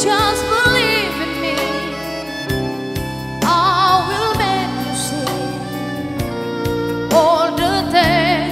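Live band playing a slow song: a woman singing with vibrato into a microphone, with a violin and a steady low accompaniment.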